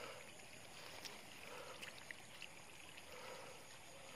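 Near silence: faint rustling of a wet nylon mesh bag being handled in grass, with a few soft small clicks.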